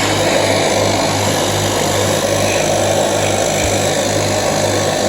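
Small engine running steadily at a constant speed, with a low hum and a faint regular pulse.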